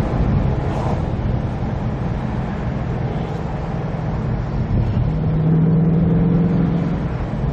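2019 Ford Mustang Bullitt's 5.0-litre V8 running under way, with steady road noise; the engine note swells a little about five seconds in.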